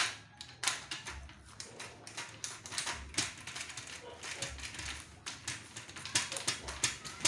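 Hand screwdriver driving a screw into an aluminium window-frame profile: a run of quick, irregular metallic clicks and scrapes.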